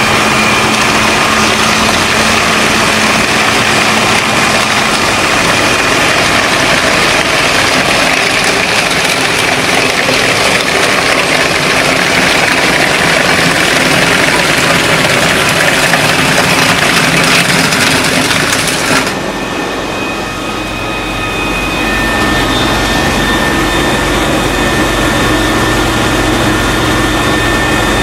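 Heavy machine engine running loud with a dense rushing noise over it. About two-thirds of the way through it switches abruptly to a steadier engine hum with a clear low drone.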